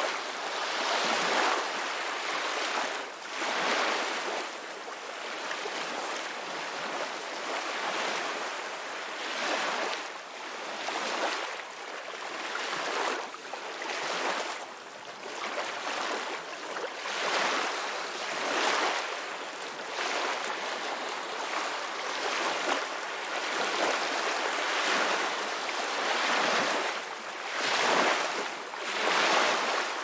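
Calm ocean waves washing on a shore, the surf swelling and fading every second or two.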